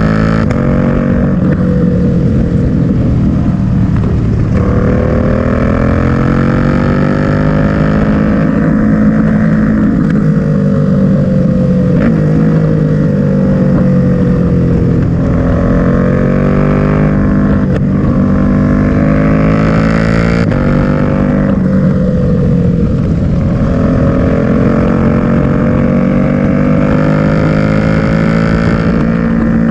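KTM 790 Duke's parallel-twin engine at speed through an old Yamaha R6 Akrapovic exhaust, its note climbing in pitch several times with a drop between each climb as the rider accelerates, rolls off or changes gear.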